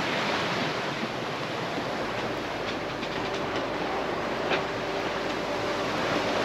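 Rushing, splashing sea water as a sailboat's bow drives through rough waves, with a steady hiss of wind and spray. Soft background music with long held notes comes in about two seconds in.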